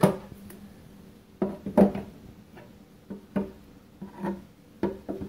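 Metal food cans being put into a painted plywood can rack and rolling down its slots, knocking against the wood in about ten hollow, briefly ringing knocks. The loudest knocks come right at the start and a little under two seconds in.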